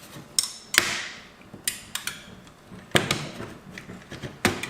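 Sharp, irregular clicks and knocks of an HP G72 laptop's plastic case and battery latch being worked loose by hand, about five distinct snaps with quieter handling noise between them.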